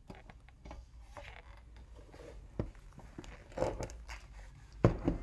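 Leather-gloved hands handling a smartphone and its hard packaging: light rubbing, rustling and small clicks, with a louder knock near the end.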